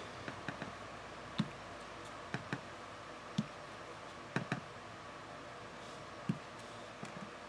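Small wood-mounted rubber stamp being inked on an ink pad and pressed onto card stock on a desk: about a dozen soft, irregular taps and clicks.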